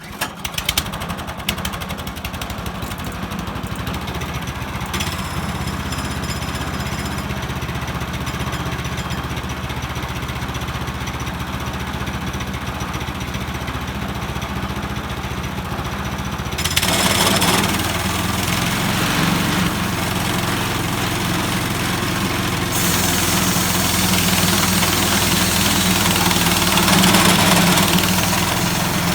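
Small gasoline engine of a Harbor Freight portable bandsaw sawmill starting and then running steadily. About two-thirds of the way in it gets louder and harsher, with much more hiss.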